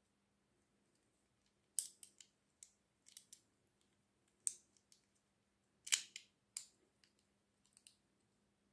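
Small plastic clicks and snaps from a green Bakugan figure as its hinged plastic parts are folded shut into a ball: a string of short, sharp clicks, the loudest about six seconds in.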